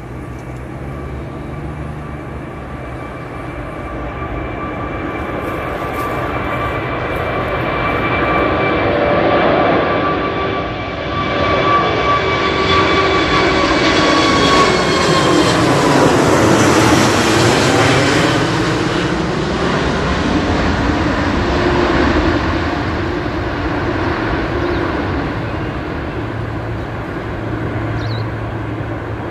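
Airbus A380's four jet engines at takeoff power on the climb-out, growing louder as it approaches and passes overhead, then easing as it flies away. A steady whine rides on the roar and falls in pitch as the aircraft passes.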